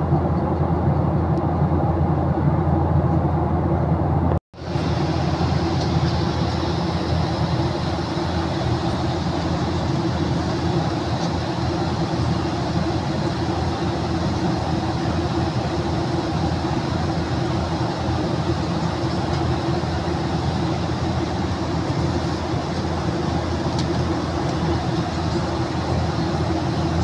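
Steady cabin noise of a Boeing 737-800 in flight, a low rumble of its CFM56 engines with airflow hiss, heard from a window seat. It cuts out abruptly for an instant about four seconds in, then carries on with a little more hiss.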